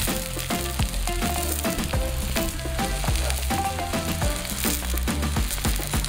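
Sliced onions sizzling as they fry in a cast iron skillet over a campfire, stirred with metal tongs.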